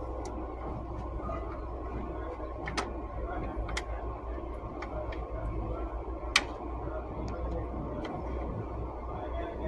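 Steady background noise with a low hum, broken by a few sharp clicks or knocks, the loudest about six seconds in.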